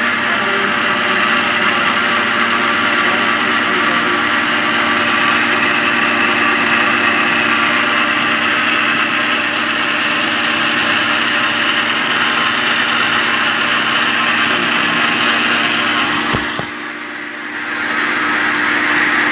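Bosch kitchen machine's blender motor running steadily at speed, its blade churning milk and Oreo cookies in the jug. The sound drops briefly about three-quarters of the way through, then picks back up.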